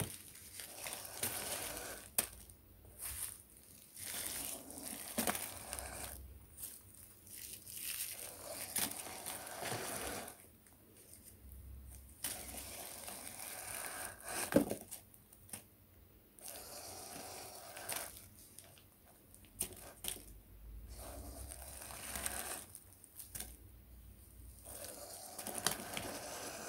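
Small plastic rubbish bags crinkling and rustling in irregular bursts as they tumble into the plastic hopper of a 3D-printed model rubbish truck, with light clicks and knocks of the plastic parts; one sharper knock about halfway through.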